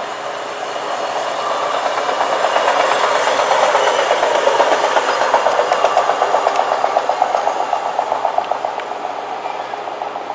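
A hi-rail pickup truck, a road truck riding the rails on its guide wheels, drives past along the track. Its engine and wheels on the rails grow louder, peak about halfway with a rapid, even pulsing, then fade as it moves away.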